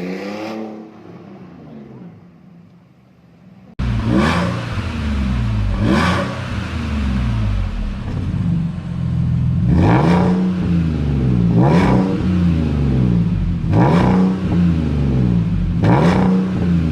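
Porsche Cayenne engine revved through an aftermarket valved exhaust with the valves open. The engine drops back from a rev and fades, then after a sudden cut it idles and is blipped sharply six times, about every two seconds.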